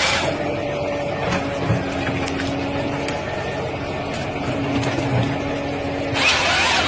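Forestry harvester head running with a steady mechanical hum. Its chain saw is cutting at the very start, stops, then cuts again about six seconds in with a loud noise.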